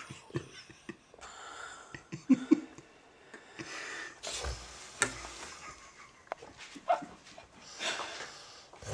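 A sleeping man breathing noisily through his mouth with his nose pinched shut: irregular gasps and snorts, the strongest breaths about four and eight seconds in.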